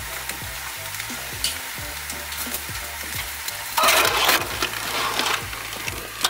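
Manual pallet jack rolling and rattling over the wooden floor of a box-truck trailer during unloading, with a loud scraping burst about four seconds in and shorter clatters near the end.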